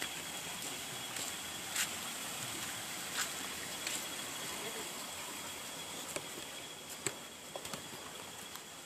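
A steady, high-pitched insect drone over a faint hiss, with scattered sharp clicks and crackles.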